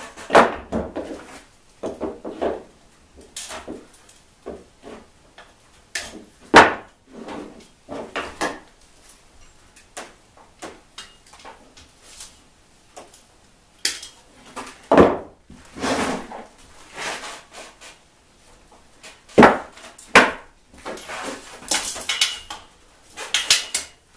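Hand tools and metal parts clinking, scraping and knocking at irregular intervals while a trike's gear shifter is unbolted and removed, with a few sharper knocks standing out.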